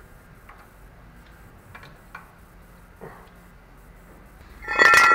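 Light scattered clicks of metal tools and parts being handled, then near the end one loud metallic clank that rings briefly.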